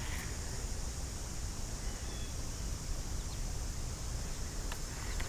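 Steady outdoor background noise on open water: a low rumble under an even high hiss, with one faint click near the end.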